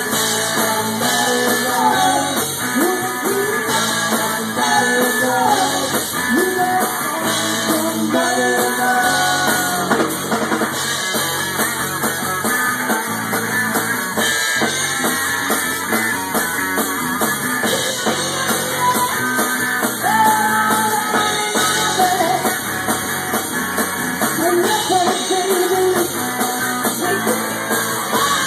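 Live rock band playing loud: a female lead voice singing into a microphone over electric guitars and a drum kit.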